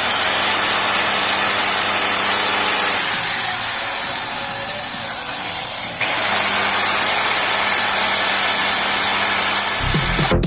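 Modified KTM Duke 200 motorcycle's single-cylinder engine idling steadily, a little softer for a few seconds in the middle. Music with a heavy bass comes in near the end.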